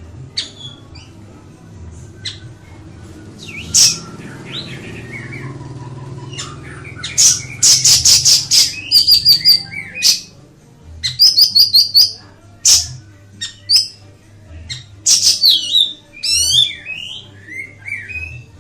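Siri-siri bird singing: sharp, high chirps and rapid chattering trills in bursts, with falling slurred whistles near the end.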